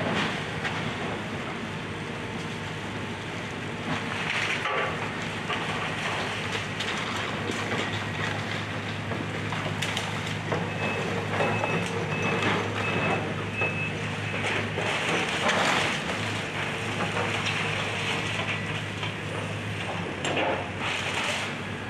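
Excavator's diesel engine running steadily while it tears into a house, with crackling and crunching of breaking wood and debris that surges several times. A series of short high beeps sounds briefly in the middle.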